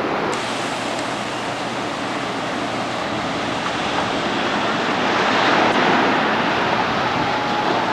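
Steady rush of surf mixed with wind buffeting the camcorder microphone, swelling a little about five seconds in.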